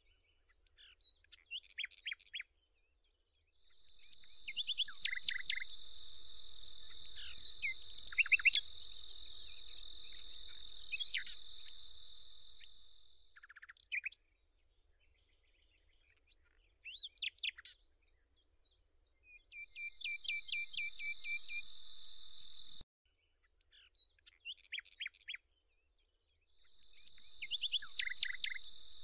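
Outdoor ambience of small birds chirping and calling, with an insect stridulating in long stretches of steady, rapid high pulsing that start and stop abruptly.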